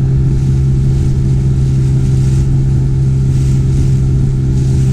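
Outboard motor of a small inflatable boat running steadily at speed, a constant engine hum with no change in pitch, over a steady hiss of water and wind.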